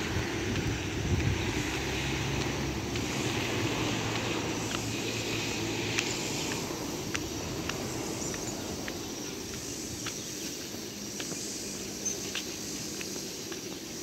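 Footsteps on a concrete road, a short sharp step about every half second, over steady outdoor background noise. A low hum is heard in the first few seconds and then fades away.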